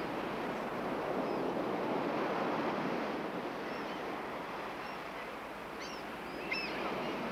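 Ocean surf breaking on a rocky beach, a steady wash of waves that swells about two seconds in and eases off, with a few short, high chirps over it.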